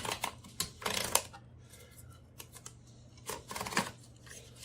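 A sheet of paper rustling as it is fed into a Royal Quiet DeLuxe portable typewriter, with clicks from the machine. There are two bouts of handling, one at the start and another after about three seconds.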